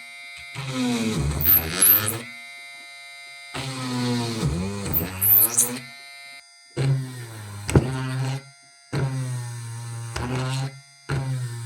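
Homemade mini drill's 555 DC motor switched on and off in about five short runs of a second or two each, a whirring hum with a rising and falling pitch. In the first two runs the pitch sags and then recovers.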